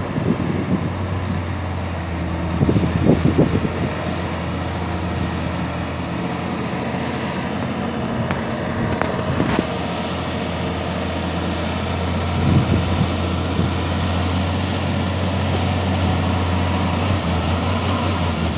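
Fully loaded Hino ten-wheeler diesel truck running under load as it climbs uphill round a hairpin, a steady low engine note that grows slightly louder near the end as the truck comes closer.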